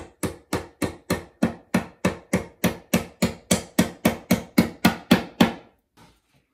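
Hammer blows on wood in a quick, even rhythm of about three strikes a second, stopping about five and a half seconds in: a flat-pack drawer being knocked together.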